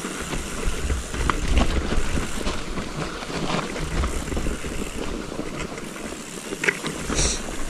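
Mountain bike riding down a snowy trail, heard from a camera on its handlebars: wind buffeting the microphone and tyres rolling over snow, with scattered clicks and rattles from the bike and a brief high squeak near the end.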